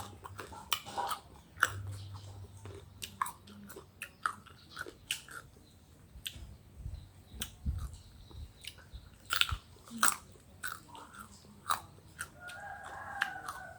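People biting into and chewing crisp unripe green Kaew mango, a run of irregular sharp crunches and clicks.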